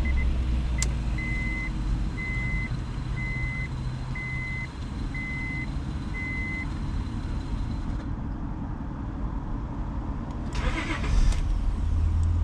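Acura TL's 3.2-litre V6 running smoothly with a steady low hum, its misfire cured. Over it an electronic chime beeps at one pitch about once a second, some seven times, then stops. A brief rustle comes near the end.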